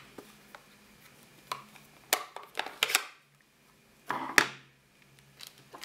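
Craft supplies being handled and set down on a tabletop: a series of light taps and clicks, with a sharper clack about four and a half seconds in.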